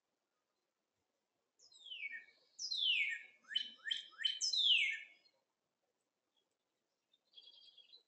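A songbird sings a short phrase of about six quick, steeply falling whistled notes. A brief buzzy chatter follows near the end.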